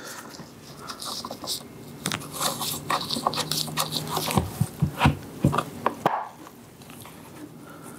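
Scattered clicks, taps and scraping of plastic against metal as the side cover of a Husqvarna electric chainsaw is pushed over the bar and chain and worked into line with its screw hole.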